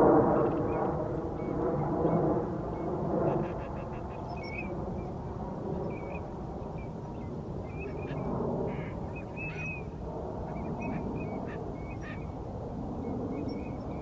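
Ducks on a pond quacking, with short high bird chirps scattered through, over a steady low rumble. The sound is loudest in the first three seconds, then settles.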